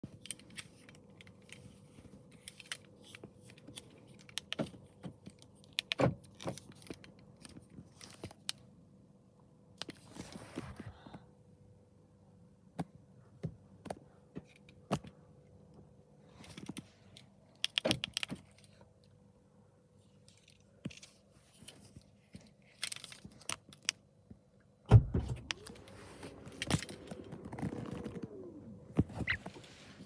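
Car keys jangling, with a string of clicks and knocks from the key fob and cabin controls of a 2020 BMW X6 being handled. Near the end comes the loudest event, a heavy thump, followed by a whine that rises and falls for about four seconds.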